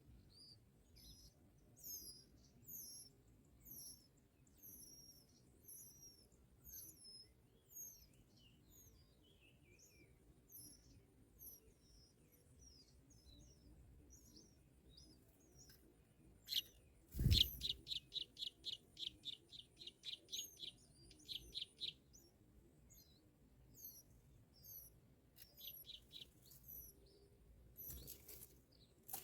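Small birds chirping in short high notes, about one to two a second. About halfway through there is a bump, then a fast run of high chirps, about eight a second for some four seconds, and a few more chirps near the end.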